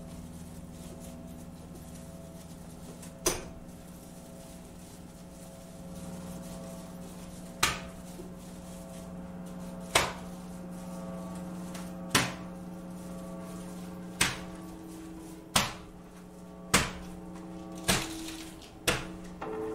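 Sparse live improvised music: upright bass and electric guitar holding quiet sustained notes, cut by sharp, loud percussive knocks. The knocks come every two or three seconds at first, then about once a second near the end.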